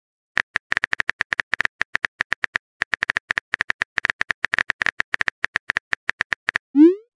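Texting-app keyboard tap sounds: a rapid run of short clicks as a message is typed letter by letter, then near the end a short rising tone as the message is sent.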